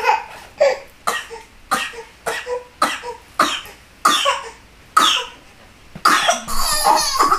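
Toddler sobbing in short, gasping, cough-like bursts, about one or two a second, breaking into a longer cry near the end.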